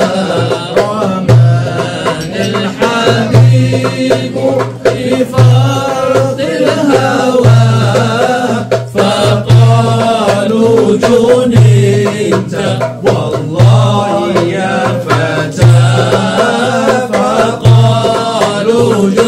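Two men's voices singing an Arabic devotional qasidah (salawat) with melismatic, bending melodic lines, over a deep low beat that falls about every two seconds.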